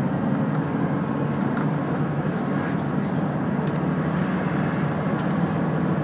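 Route bus running steadily, its engine and cabin noise heard from inside the bus.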